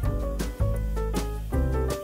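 Instrumental background music with a moving melody over a bass line and a steady beat.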